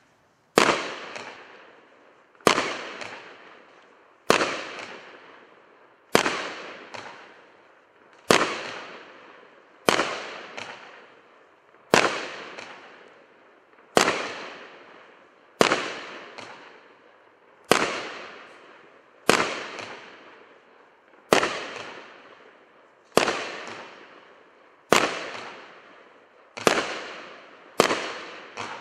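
WINDA Killer Cake, a 19-shot 1.4G consumer firework cake, firing its shots in a steady string, about one every two seconds; each is a sharp bang that fades out over a second or so.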